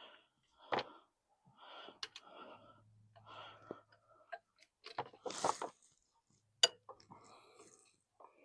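Hand tools and a socket clicking and clinking against metal parts in a car engine bay, with rustling handling noise between the sharper knocks, while a wrench is being fitted onto an alternator mounting bolt.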